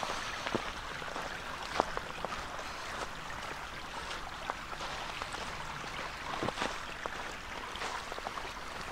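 Footsteps in a thin layer of snow on a trail, irregular soft strikes over the steady rush of a small creek running alongside.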